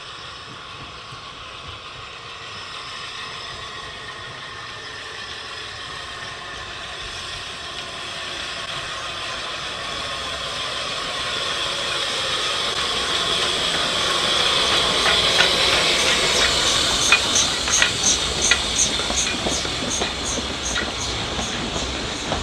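Narrow-gauge steam train approaching and passing, its running hiss growing steadily louder. Past the middle it becomes a regular clicking as the carriage wheels go over the rail joints.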